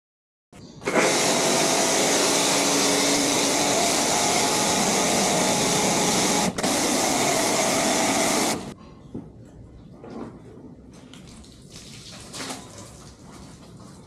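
Electric pressure washer running with a foam-cannon attachment, spraying snow foam in a loud, steady hiss with the pump's hum underneath; there is one very short break, and it then cuts off suddenly a little over halfway through. Faint rubbing and splashing of hand washing with a wash mitt follows.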